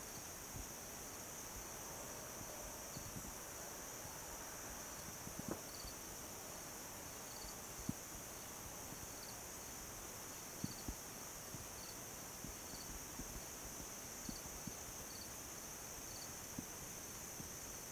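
Evening insect chorus of crickets and katydids: a steady high buzz, with a short chirp repeating about once a second. A few faint sharp ticks are scattered through it.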